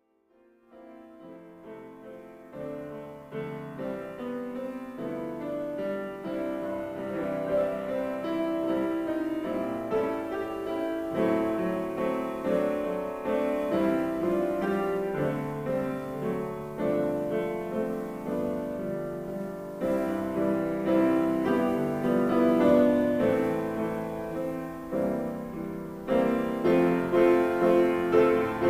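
Piano music, fading in over the first two or three seconds and then playing on at a steady level.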